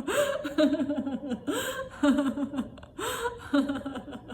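A woman laughing deliberately, as in laughter yoga, in about three bouts roughly a second and a half apart. Each bout opens with a rising, breathy cry and runs into a quick string of short "ha" pulses.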